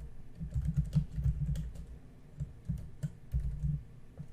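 Typing on a computer keyboard: a quick, irregular run of keystrokes with a short pause or two.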